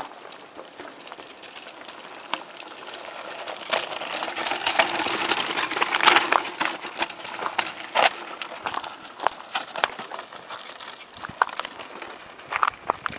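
Mountain bike riding down a rocky, gravelly trail: tyres crunching over loose stones, with frequent sharp knocks and rattles as the bike hits rocks. The noise is louder for a few seconds near the middle.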